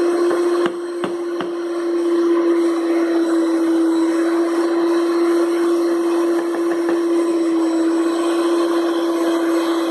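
Electric stand mixer running steadily, its twin beaters turning through cookie dough in the bowl, with a constant motor hum. A few light knocks come about a second in.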